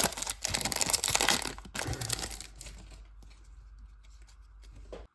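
Foil Pokémon booster pack wrapper crinkling and tearing as it is opened. It is loud for about the first three seconds, then fades to faint rustling and cuts off suddenly near the end.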